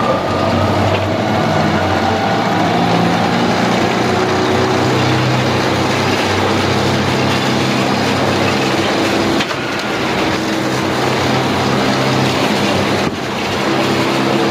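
Engine-driven firewood splitter running steadily under load as it pushes through a very large log. The level briefly drops twice, once in the second half and again near the end.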